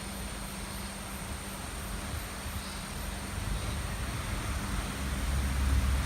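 Steady rushing of a flood-swollen river, with faint high insect chirps about three times a second in the first half. A low rumble builds near the end.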